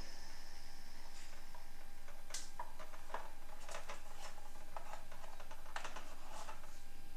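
Scattered light clicks and taps, about nine in all at an irregular pace, over a faint steady hum, like small hard objects being handled.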